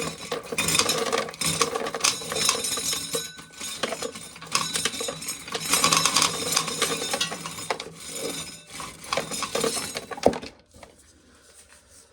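Dry corn being shelled, the kernels rattling and clinking continuously, then stopping about ten and a half seconds in.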